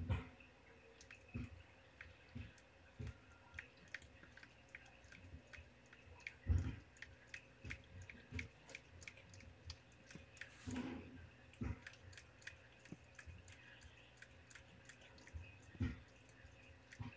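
Orange tabby tom cat licking newborn kittens to stimulate them to toilet: a long run of faint, quick wet licking clicks, with a few dull thumps, the loudest about six seconds in.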